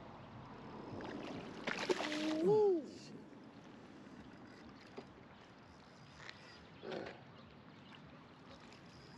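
A hooked mullet splashing and thrashing at the surface beside a landing net: a loud burst of splashing about two seconds in, and a smaller splash later. A man's whoop rises and falls over the first splash.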